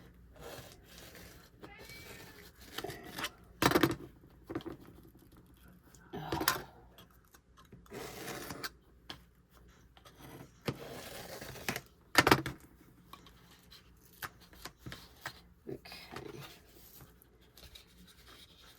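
Craft materials being handled on a tabletop: scattered knocks and taps with short stretches of scraping and rustling, the loudest knocks about four, six and twelve seconds in.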